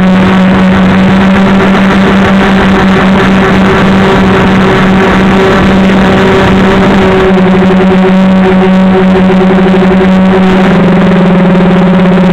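Loud, steady drone of a model aircraft's motors and propellers, heard from the onboard camera. The pitch drops slightly and turns rougher about ten seconds in.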